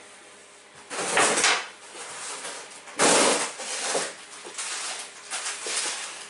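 Two short scraping, sliding noises about two seconds apart, followed by fainter knocks and rustles.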